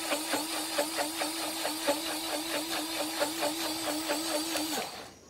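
Battery-powered portable juice-cup blender running with plain water inside as a rinse, a steady whir with a regular pulsing about five times a second. The motor switches off shortly before the end.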